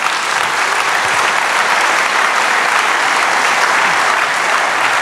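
Large seated audience applauding, a dense, steady clapping.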